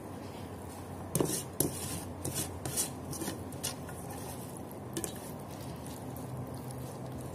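Salmon being handled in an enamel basin while marinade is rubbed in: hands rubbing the fish, and a run of sharp knocks and clatters against the basin as it is turned over, starting about a second in and loudest near the start.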